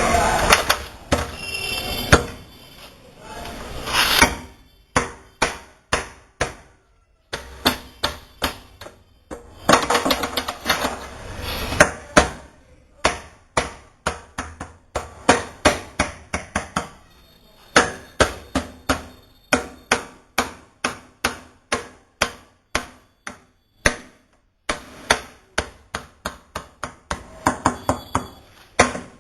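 Hammer blows on a wooden barrel as its head is fitted by hand: a long series of sharp strikes, about two a second, in runs with short pauses between them.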